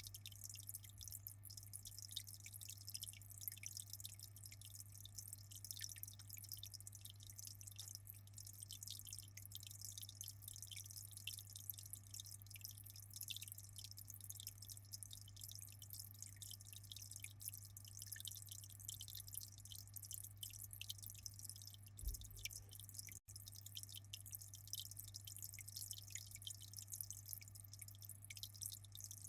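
Aquarium water trickling and dripping with a continuous fine splashing, over a steady low hum. The sound cuts out for an instant about three-quarters of the way through.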